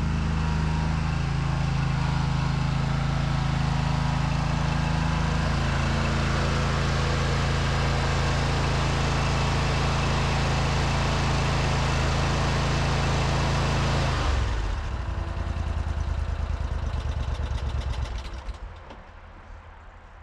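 Engine of an OMC Mustang 330 skid steer idling steadily, then shut off about fourteen seconds in, chugging slower and slower as it runs down to a stop.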